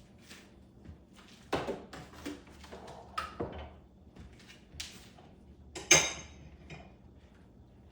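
Cups and kitchenware being handled on a counter: a series of short knocks and clinks, the sharpest and loudest about six seconds in.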